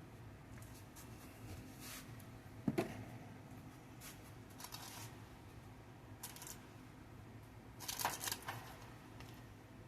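Kitchen handling sounds during salad preparation: scattered light knocks, clicks and rustles, with one sharp knock a little under three seconds in and a brief cluster of louder clicks near the end.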